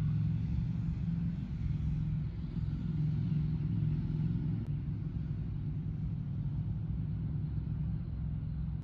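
A steady low rumble with little above it.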